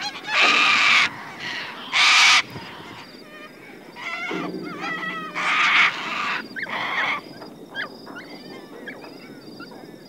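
A flock of little corellas calling: several loud screeches in the first seven seconds, with softer chattering calls between them.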